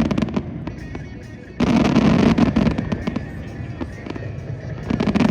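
Fireworks going off in dense volleys of rapid bangs and crackles: a volley dies away just after the start, another hits about a second and a half in, and a third begins near the end, with lighter crackling in between.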